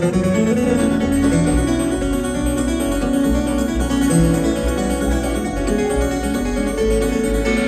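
Live bluegrass string band playing an instrumental break: quick picked notes from acoustic string instruments over a steady, pulsing bass line.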